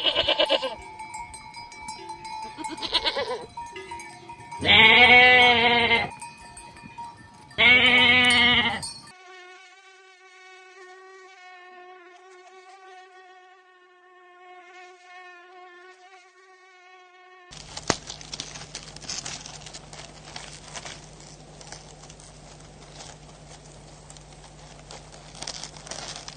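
Animal calls: two loud, wavering calls about five and eight seconds in, followed by a long faint steady tone, then a stretch of crackly noise with clicks.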